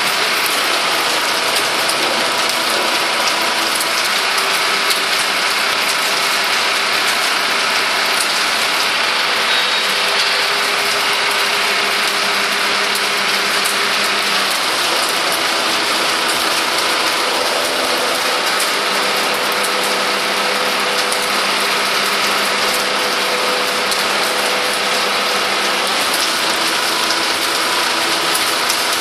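Steady mechanical whirring and engine hum from a tilt-tray lorry hauling a forklift up its sloped bed, under a hiss of rain. The hum's pitch steps up and down now and then.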